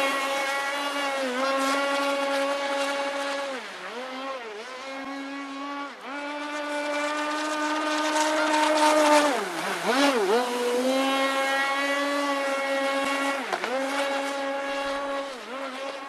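Radio-controlled model boat's motor running at high revs with a steady buzzing whine, dropping sharply in pitch and picking straight back up several times as the throttle is eased off and reopened.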